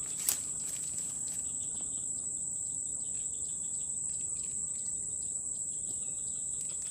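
Steady high-pitched drone of insects chirring in the vegetation, unbroken throughout. There is one sharp click about a third of a second in.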